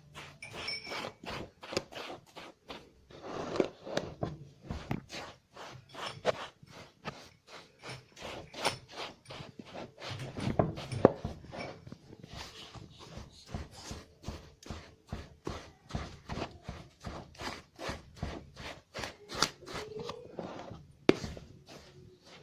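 A spoon scraping and knocking against a mixing bowl in quick, irregular strokes, working basbousa mix and ghee together into a crumbly, sand-like texture.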